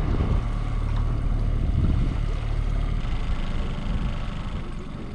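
Fishing boat's motor running steadily at trolling speed, a low hum with the wash of water around the hull.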